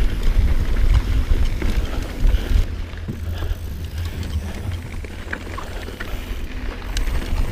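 Mountain bike riding over a rough dirt trail: a steady low wind rumble on the microphone over tyre noise, with scattered clicks and knocks as the bike rattles over bumps.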